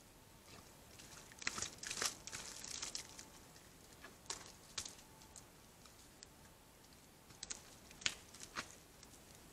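Faint, irregular crackling and rustling of dry leaves and twigs on the forest floor as a red deer hind and a wild boar step about and feed, with a thicker run of crackles between about one and a half and three seconds in and a few sharper snaps near the end.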